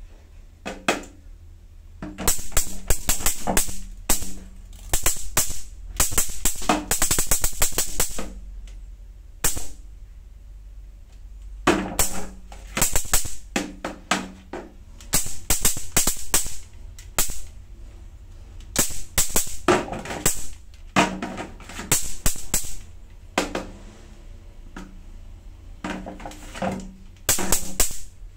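Electric mosquito racket zapping mosquitoes: about ten bursts of rapid crackling snaps, some lasting a couple of seconds, as insects hit the charged mesh.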